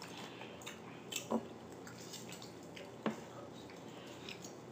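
Quiet table sounds of hands eating a seafood boil: a few soft, wet clicks and squishes from fingers handling saucy food and a lemon wedge, the clearest a little over a second in and about three seconds in.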